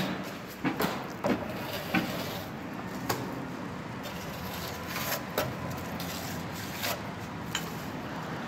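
Plaster-spraying machine running with a steady hum, with irregular sharp knocks and clicks on top.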